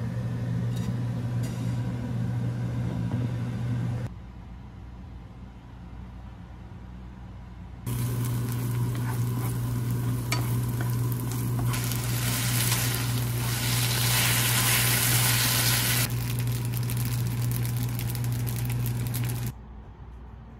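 Sliced and minced garlic with dried chili frying in oil in a pan, sizzling as a wooden spatula stirs it. The sizzle comes in loud about a third of the way in and stops shortly before the end, over a steady low hum.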